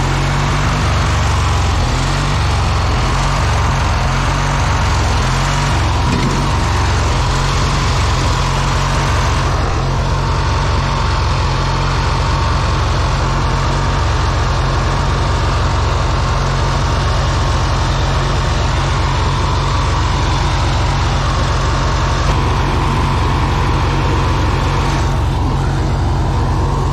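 Riding lawn mower's small engine running steadily as the mower drives along, a low rumble with a thin steady whine over it.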